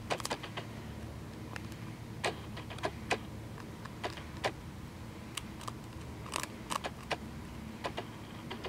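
Cottontail rabbit biting and chewing a hard seed treat stick: faint, irregular crunches and crackles, a few clustered together, with pauses of up to a second between them.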